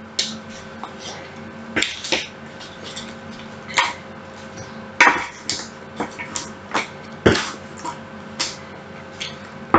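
Two spatulas scraping and knocking against a metal baking tray as roasted potatoes are scooped off it: a dozen or so short, irregular scrapes and taps over a faint steady hum.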